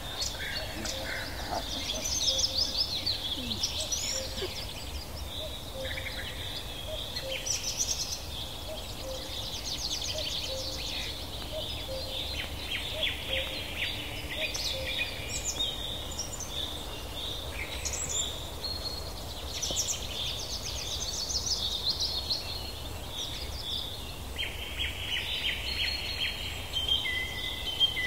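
Many small birds chirping and calling, with rapid trills, over a steady low rumble.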